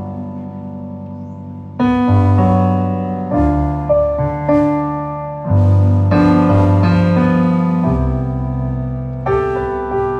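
Stage keyboard playing a piano sound: slow, sustained chords with a deep bass note under each, a new chord struck every second or two.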